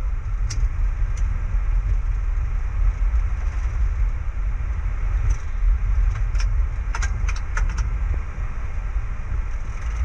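Boeing 737 flight-deck noise while the airliner taxis: a steady low rumble. A quick run of sharp clicks comes about seven seconds in.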